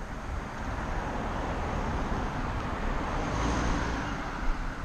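A car driving past, its engine and tyre noise swelling to a peak about three to four seconds in and then easing off.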